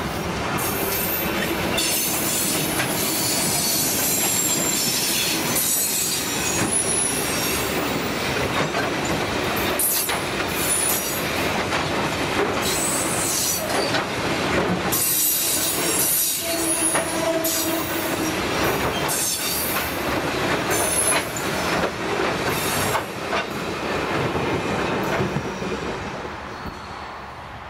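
Hopper wagons of the Penrice limestone train ('the Stonie') rolling past close by: a steady heavy rumble and clatter of steel wheels on the rails, with high-pitched wheel squeal coming and going.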